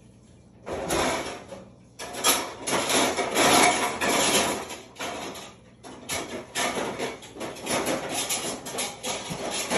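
Close rustling and scraping of things being handled, in irregular stretches with brief pauses, starting about a second in and loudest in the middle.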